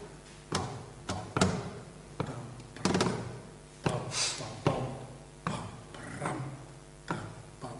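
Flamenco guitar played with single strummed chords at a slow, even pace, about one stroke every 0.8 seconds, each chord ringing on until the next. The slow measured beat is the tientos rhythm, likened to the tread of a drum.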